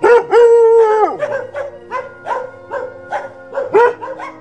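Dog barking repeatedly, with one long drawn-out bark or howl near the start, over background music.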